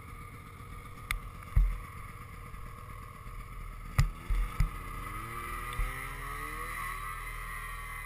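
Ski-Doo Tundra Xtreme snowmobile's 600 E-TEC two-stroke engine running at idle, with a few sharp knocks. From about five seconds in the engine rises in pitch as the sled pulls away and speeds up.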